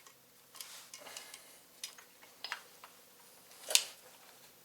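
Scattered light metallic clicks and taps from small motorcycle brake-pedal parts being handled and fitted, a handful in all, the loudest about three-quarters of the way through.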